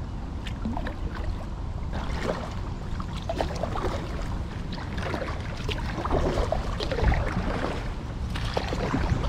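Kayak pushing through a thick mat of floating water hyacinth: leaves and stems rustle and scrape along the hull with irregular crackles, which set in about two seconds in, over a low rumble.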